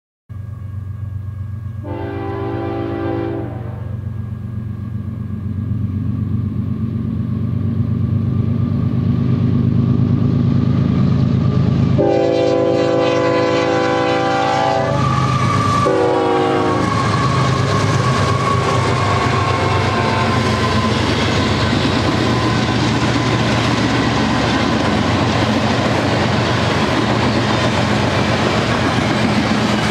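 Union Pacific GE C45ACCTE diesel freight locomotives running as they approach, growing louder over the first several seconds, and sounding their air horn: a blast about two seconds in, a long blast around the middle, then a short one right after. The locomotives pass and the freight cars roll by with a steady clacking and rumbling of wheels on the rails.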